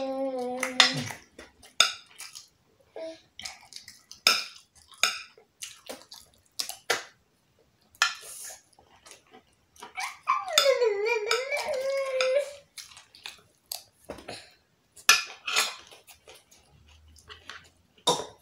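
A metal spoon clinking and scraping against a glass baking dish of rice, in many short sharp clicks. A toddler makes a drawn-out, high-pitched wordless vocal sound about ten seconds in.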